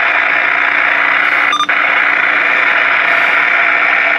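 Uniden BearCat BC-880 CB radio's speaker hissing with steady receiver static, squelch open, with one very short blip about a second and a half in.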